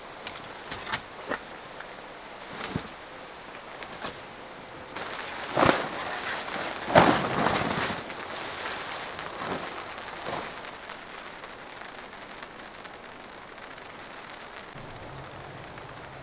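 Tipi tent fabric swishing and rustling as it is lifted and shifted by hand, loudest about five to eight seconds in, with a few sharp clicks before it. A steady patter of rain runs underneath.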